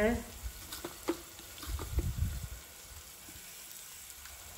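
A metal spoon clicks a few times against an aluminium cooking pot while ingredients are dropped in, with a short low rumble about two seconds in. After that there is a faint steady hiss.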